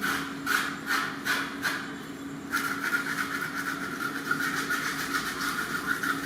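A knife working on pork: separate scraping strokes about two or three a second, then from about two and a half seconds in a rapid, continuous scraping or sawing.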